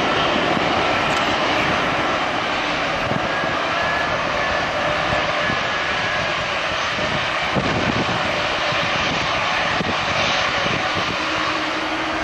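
Airbus A320-216's CFM56 jet engines running at taxi power: a steady rush with a faint high whine that drifts slightly in pitch. Near the end a lower hum joins it.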